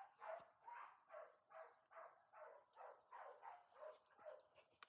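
Labrador retriever puppy panting faintly and rhythmically, about two to three breaths a second.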